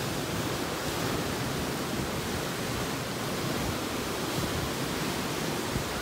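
Ocean surf breaking and washing over rocks, a steady wash of noise.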